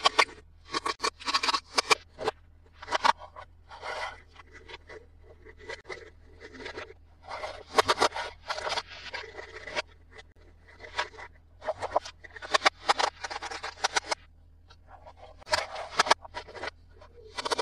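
Hands handling plastic toys and packaging: irregular scraping and rustling in short bursts, over a low steady hum.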